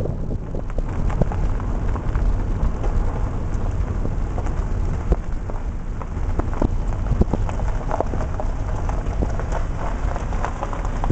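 Rain pattering steadily, in many scattered drops, over a constant low rumble.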